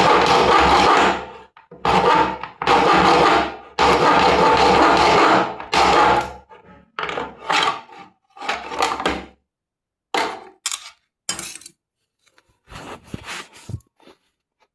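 A motorised tool running in repeated bursts with gaps between. The first few bursts last a second or two; after about seven seconds they become shorter and fainter.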